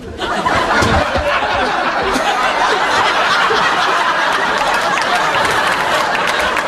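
Many people laughing together, a dense, steady wash of laughter that swells up within the first half second.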